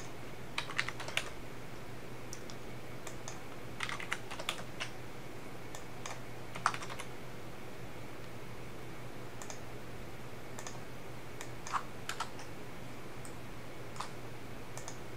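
Computer keyboard keys and mouse clicks in a few short bursts as offset values are typed into fields, over a faint steady low hum.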